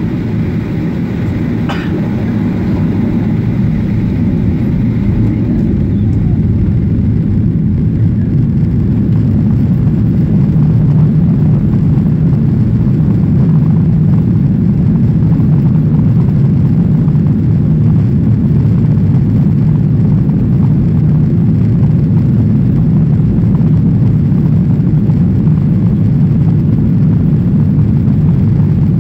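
Boeing 737-800's CFM56-7B turbofan engines at takeoff thrust, heard from inside the cabin as a deep, dense rumble during the takeoff roll. The sound grows louder over the first ten seconds or so, then holds steady as the jet accelerates down the runway.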